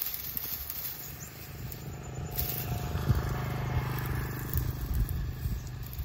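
A small engine running with a steady low hum, growing louder about two seconds in and easing off toward the end, with a few light knocks and clatters over it.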